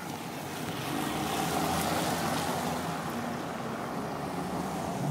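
Air and tyre noise rushing in through an open car window while driving on a wet, slushy road: a steady hiss that swells about a second in.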